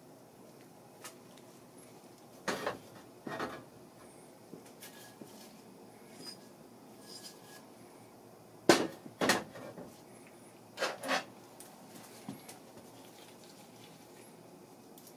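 Engine block and metal tools being handled on a workbench: scattered clanks and knocks with small clicks between, the loudest knock about nine seconds in, as the block is lifted and set down and the valve spring compressor is picked up.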